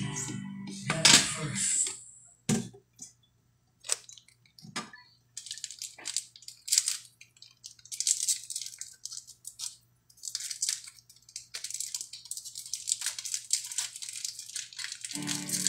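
Kitchen handling sounds at a counter: a few sharp knocks and clatters in the first couple of seconds, then intermittent fine crackling and small clicks.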